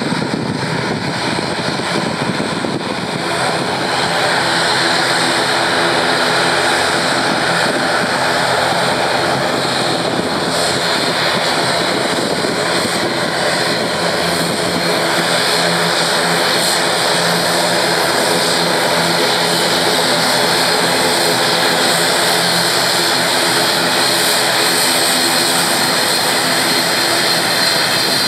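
ATR 72-600 turboprop taxiing, its twin Pratt & Whitney PW127-series engines at low taxi power: a steady propeller drone over a high turbine whine, growing a little louder about four seconds in.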